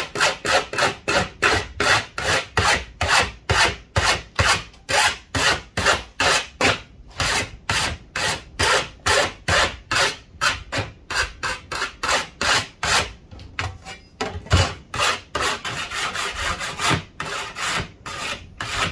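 Hand file rasping along the cut edge of a metal sheet in regular back-and-forth strokes, about two to three a second, quickening near the end: deburring the sharp edge left by a cutting disc.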